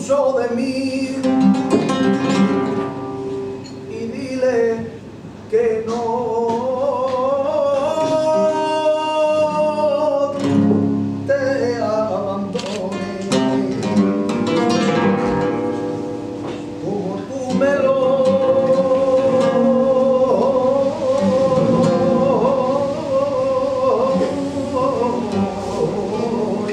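Male flamenco cante sung live over a Spanish guitar: ornamented vocal lines that bend in pitch and are held long, twice for several seconds, with the guitar plucking and strumming underneath.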